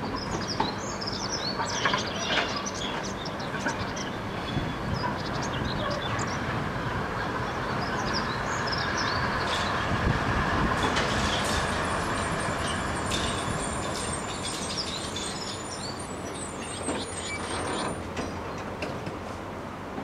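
DÜWAG Kurbelwagen tram running in over the rails and slowing to a stop. The rumble swells about halfway through, then eases as the tram brakes, with a faint high squeal in the second half.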